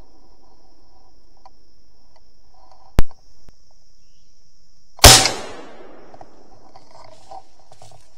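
Two gunshots about two seconds apart, fired up into the treetops at a squirrel; the second has a longer echoing tail.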